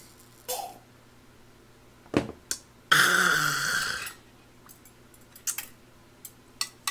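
A loud, rasping, throaty exhale lasting about a second, just after a shot of soju is swallowed. Before it come two sharp clicks; afterwards chopsticks click several times against a metal pan.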